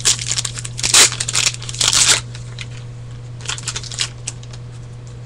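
A 2009 Topps Platinum football card pack's wrapper torn open and crinkled in several bursts over the first two seconds. A few lighter rustles and clicks follow as the cards are handled.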